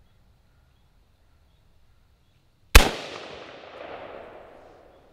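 A single shot from a .223 AR-15 rifle (F&D Defense XAR) a little past halfway through, followed by its echo rolling back and fading over about two seconds, with a second swell of echo about a second after the shot.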